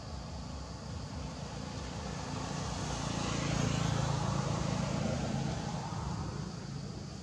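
A motor vehicle passing by: an engine hum and road noise that swell to their loudest about halfway through, then fade again.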